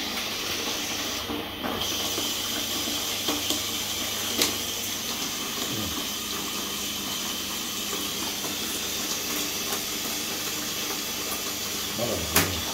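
Water pouring from a hose into a plastic baby bath, a steady splashing hiss as the tub fills. A few sharp clicks over it, the loudest near the end.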